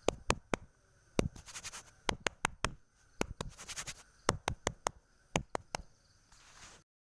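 A hand scrubbing shampoo lather through a wet golden retriever's coat: irregular sharp wet clicks and squelches mixed with short scratchy rubbing, stopping a few seconds before the next clip.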